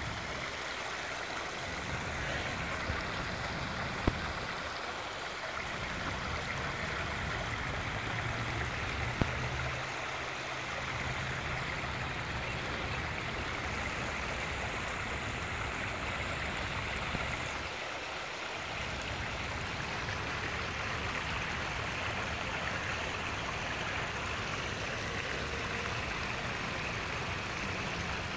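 Water running steadily over a rock ledge into a pond, a small cascade splashing and rushing. Two sharp clicks stand out, a few seconds apart.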